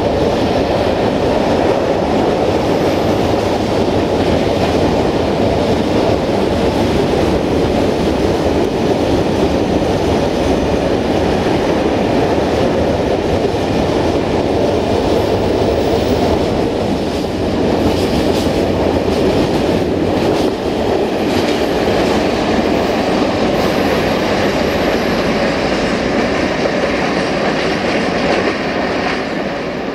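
Empty open-top freight wagons rolling past, a loud steady rumble and clatter of steel wheels on the rails. It drops off near the end as the last wagon goes by and moves away.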